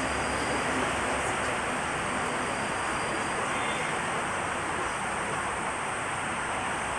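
Steady hiss of an old analogue videotape recording with a faint, constant high-pitched whine; no distinct sound events such as a bowstring release.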